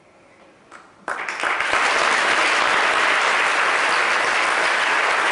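Audience applauding, breaking out suddenly about a second in after a quiet moment and then holding steady and loud.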